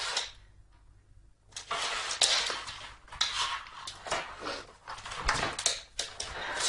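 A cat pushing into and pawing at a cardboard box, the box rustling and scraping on a wooden floor with many small knocks. It starts about a second and a half in, after a short lull.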